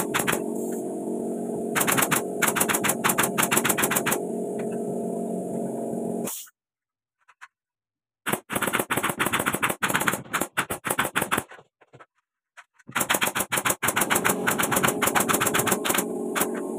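Nail gun firing nails into wooden ceiling planks: rapid runs of sharp snapping shots in several bursts, twice broken off by a sudden cut to silence.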